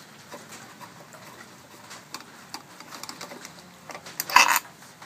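Small clicks and ticks of hands and a flathead screwdriver working the air filter cover of a small Briggs & Stratton mower engine, then one short, louder plastic scrape and rattle about four seconds in as the cover is worked loose.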